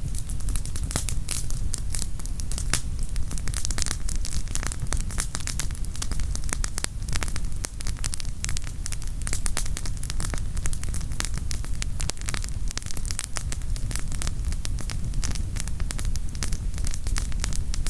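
Wood campfire crackling: a dense, irregular run of sharp pops and snaps from burning firewood over a steady low rumble.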